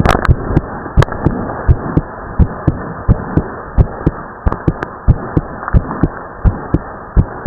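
A teenage boy's heartbeat, recorded close up, beating fast after exercise in a steady lub-dub rhythm over a constant hiss. The second heart sound is split, which the uploader calls a split S2. A brief scuff sounds right at the start.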